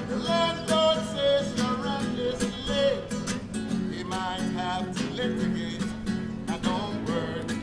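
Acoustic guitar strummed in a steady, even rhythm, with brief higher melodic phrases over the strumming near the start and again about four seconds in.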